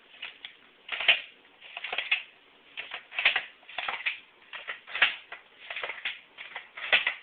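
Tomato being sliced on a Pampered Chef Ultimate Mandoline: the holder pushed down over the blade and back up in repeated strokes, about one a second.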